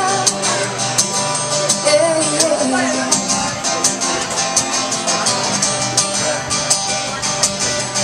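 Live band playing an instrumental passage between sung lines, guitar to the fore over a steady beat.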